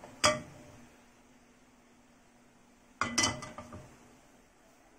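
Kitchen utensils and cookware clinking: a sharp metallic clink about a quarter second in, then a cluster of clinks and knocks with a brief ring around three seconds in, over a faint steady background hiss.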